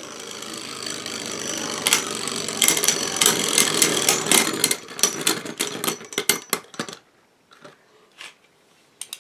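Two Beyblade spinning tops whirring on a plastic stadium floor and clashing, with rapid sharp clacks that come thick and fast from about three seconds in. About seven seconds in the spinning stops, and only a couple of light knocks follow.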